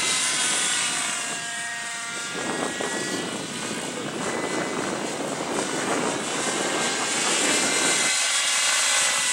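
Vibe 50 radio-controlled helicopter in flight: a steady engine whine whose pitch shifts, with a rougher rushing noise taking over from about two seconds in until near the end, when the whine comes back clear.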